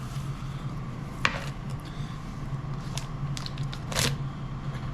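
Handling noises: a few short clicks and scrapes of items and packaging being handled, the loudest about four seconds in, over a steady low hum.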